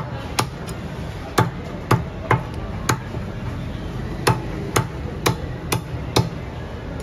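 Meat cleaver chopping a chicken into pieces on a wooden log chopping block: about a dozen sharp chops in uneven runs of roughly two a second, with a short pause midway.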